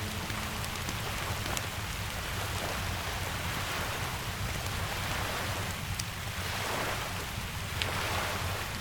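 Steady rain falling, with a low rumble beneath and a few sharp crackles from a wood fire.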